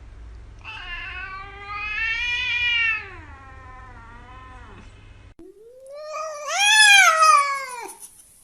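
Domestic cat giving two long, drawn-out meows. The first is a wavering yowl lasting about four seconds. After a short break comes a louder call that rises and then falls, near the end.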